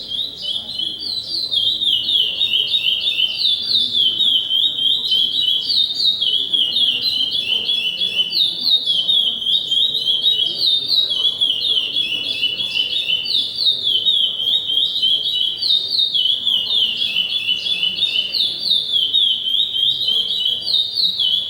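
A songbird singing one long, unbroken song of rapid, repeated downward-sliding whistled notes.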